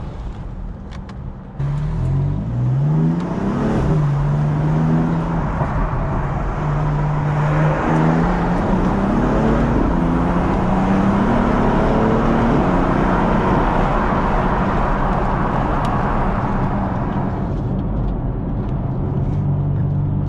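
BMW F82 M4's twin-turbo straight-six, tuned to Bootmod3 stage 1, heard from inside the cabin with the windows part down: the engine opens up sharply about a second and a half in, the revs climb, drop at a gear change and climb again, then it holds a steady drone with road and wind noise that eases off near the end.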